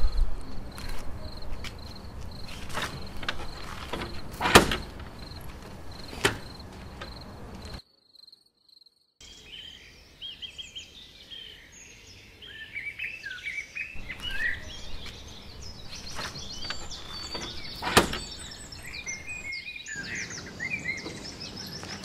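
Small birds chirping busily, many short high chirps, through the second half. The first part holds a faint steady high-pitched tone with a few sharp knocks. A brief silent break comes in between, and another sharp knock sounds near the end.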